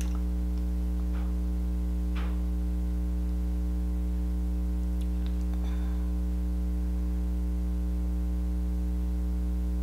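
Steady electrical mains hum with its overtones, unchanging throughout, with a few faint soft clicks now and then.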